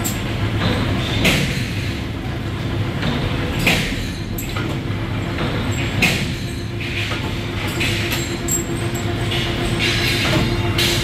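Machine-shop machinery running with a steady low hum, and a metallic clank repeating about every two and a half seconds, with a few light clinks of metal on metal.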